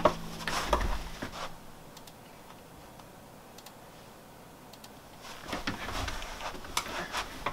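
Computer mouse clicking and a person shifting in a desk chair: scattered clicks and soft knocks in the first second or so and again from about five seconds in, quieter in between.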